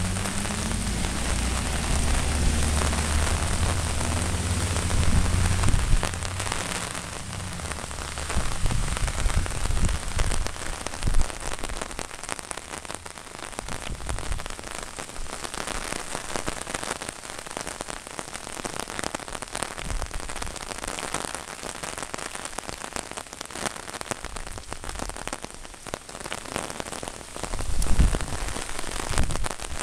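Steady heavy storm rain falling on an umbrella held overhead and on the flooded street. A low engine hum sits under it for the first six seconds or so, and there is a brief low rumble near the end.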